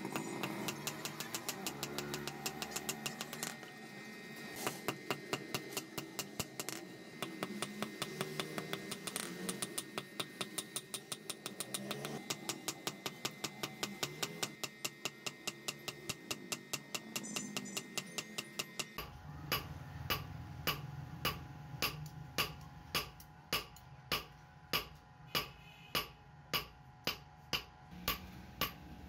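Hand hammer striking red-hot iron on a steel anvil block in a steady run of quick blows, drawing the rod out into a knife blade. About two-thirds of the way through, the blows slow to about two a second.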